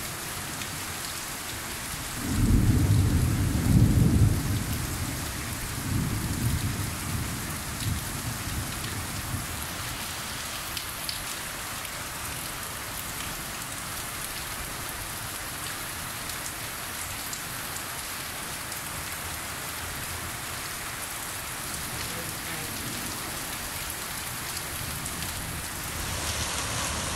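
Heavy rain pouring steadily in a thunderstorm. A loud low rumble of thunder comes about two to four seconds in, with fainter rumbles around six and eight seconds.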